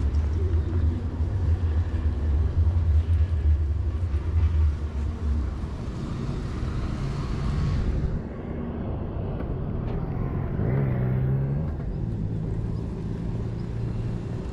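City road traffic: a heavy low rumble of passing vehicles for the first few seconds, then, after a sudden change in the sound, another engine passing with a hum that rises and falls.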